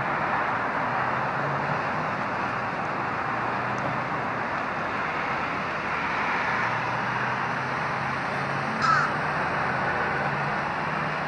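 A blackbird gives a short squawk near the end, over a steady background rush of noise.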